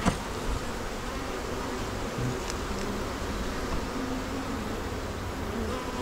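Honey bees buzzing steadily as a colony hums over a nucleus hive opened for inspection. A single short click sounds right at the start.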